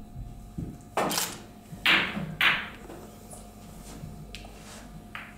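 A snooker shot: the cue tip knocks the cue ball about a second in. About a second later come two loud, sharp clacks of ball striking ball, half a second apart. Fainter ball clicks follow near the end.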